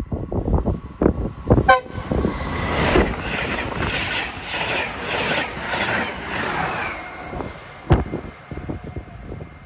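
SJ X2000 electric high-speed train passing at speed: a brief horn toot as it nears, then a loud rush of wheels and carriages with a regular beat, about two a second, as the bogies go by. A sharp thump comes about eight seconds in, as the rear of the train passes. Wind buffets the microphone at first.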